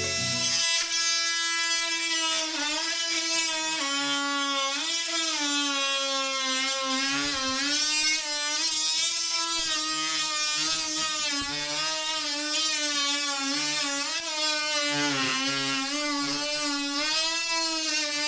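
Milwaukee 12 V oscillating multi-tool cutting through timber floorboards: a steady high buzz whose pitch dips and recovers again and again as the blade bites into the wood.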